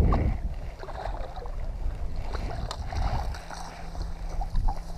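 Wind rumbling on the microphone over water lapping at a bass boat's hull, with a few sharp ticks. A faint steady hum sets in about three seconds in.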